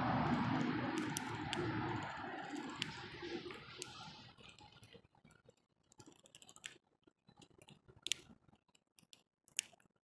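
Irregular sharp clicks and taps of a bird pecking and handling seed at a feeder, after a rustling noise that fades out over the first few seconds.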